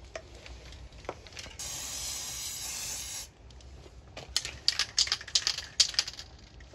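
Aerosol can of black spray paint hissing in one steady burst of nearly two seconds while coating a small metal firebox, then a quick, uneven run of sharp clicks.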